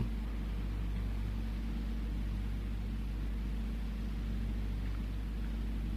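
Steady low electrical hum with a faint hiss: the background noise of the talk's recording in a pause between phrases, unchanging throughout.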